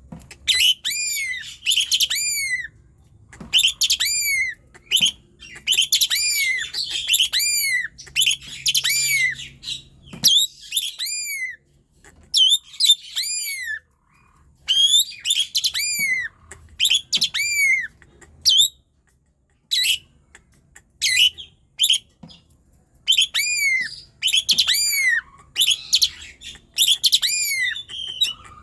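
Asian pied starling singing persistently: phrases of loud, repeated arching notes broken by short pauses.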